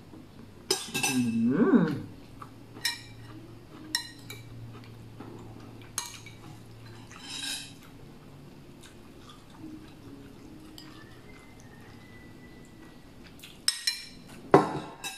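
A metal serving spoon clinking and scraping against a glass bowl and ceramic plates as curry is ladled out, in scattered separate clinks. The clatter is loudest about a second in and again near the end.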